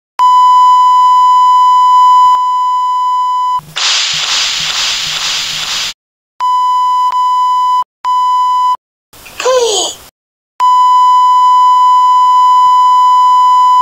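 Censor bleep: a loud, steady 1 kHz beep tone held for long stretches and cut into shorter beeps, bleeping out a swearing tirade. About four seconds in it gives way to a two-second burst of hiss, and near ten seconds a short sound falls in pitch.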